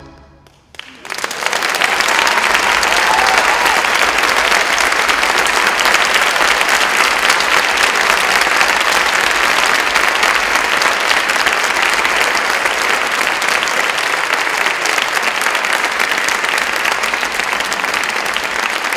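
Theatre audience applauding, breaking out about a second in and then keeping up steadily: clapping at the end of a performance.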